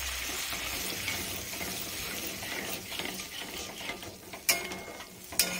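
Metal spatula stirring and scraping fried masala with freshly added water in a metal kadhai, working it into a gravy; the mixture sizzles at first. Two sharp clicks of the spatula against the pan come a little after four seconds in and again near the end.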